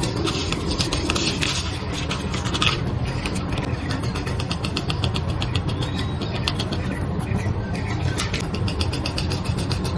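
A vehicle's engine running steadily with a low rumble, with runs of quick, light ticking or rattling over it.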